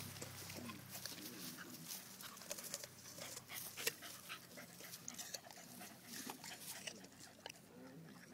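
Rottweiler gnawing and mouthing a whole apple: scattered sharp clicks and crunches of teeth on the apple's skin, one louder crack near the middle.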